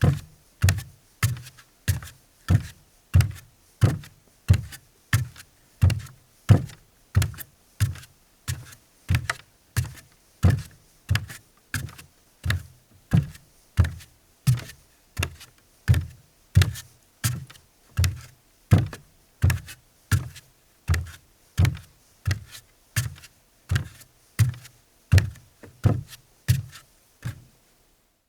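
Barefoot man's footsteps walking on a deck: dull, even thuds at a steady walking pace, about one and a half steps a second, stopping near the end.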